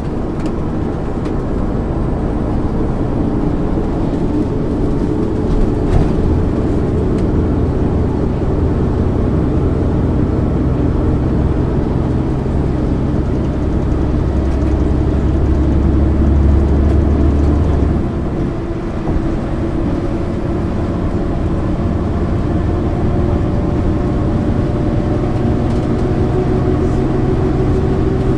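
The diesel engine and drivetrain of a 1999 MAN ÜL 353 intercity bus, running under way as heard on board. A heavy low drone builds for several seconds, drops off suddenly about two-thirds of the way through, and then settles into steady running.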